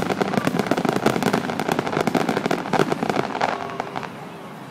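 Aerial fireworks finale barrage: rapid, overlapping bangs from many shells bursting at once, thinning out and getting quieter near the end.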